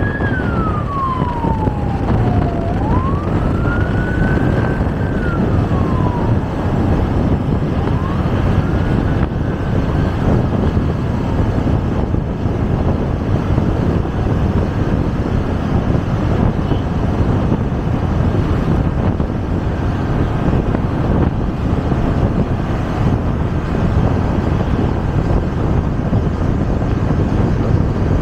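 An emergency vehicle's siren wailing in slow rises and falls of pitch, fading out about ten seconds in, over steady wind and road noise.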